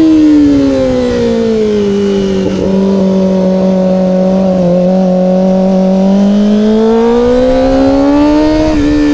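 Kawasaki ZX-25R SE's high-revving inline-four engine through an Austin Racing aftermarket exhaust, heard while riding. The engine note falls as the throttle eases over the first two seconds, holds steady, then climbs again from about six seconds, with a brief break near the end.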